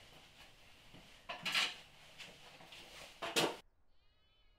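Two short metallic clatters of hand tools being handled, about a second and a half in and again about three seconds in, over a faint hiss.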